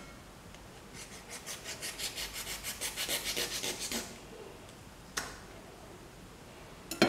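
Rapid rhythmic scraping, about six strokes a second for roughly three seconds. Then comes a knock, and near the end a sharper, louder knock.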